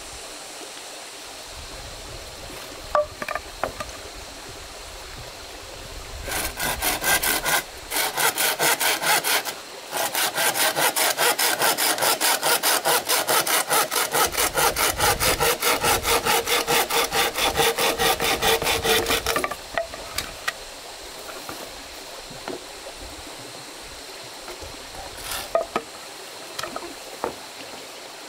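A hand saw cutting through wood in quick, even back-and-forth strokes. The sawing starts about a quarter of the way in, breaks off briefly twice, runs on and stops about two-thirds of the way through. A few light knocks come before and after it.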